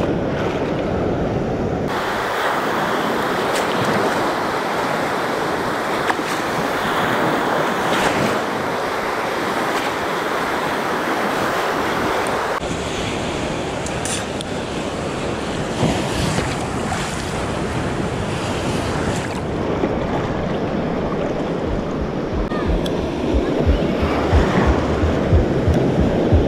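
Ocean surf breaking and washing around, heard close up from among the waves. Gusts of wind buffet the microphone near the end.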